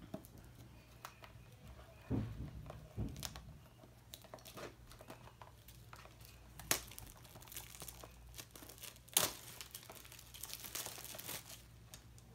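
Plastic wrapping being torn off a small cardboard box and crumpled, and the box being opened: scattered crinkles and rustles with a couple of sharp snaps, and a longer stretch of crinkling near the end.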